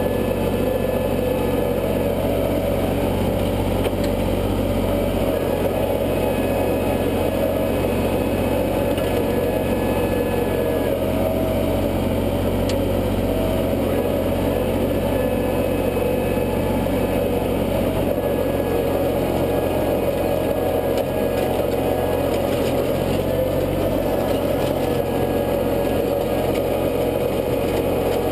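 International tractor's engine running steadily under load, driving a rear PTO rotary tiller whose tines churn through the soil.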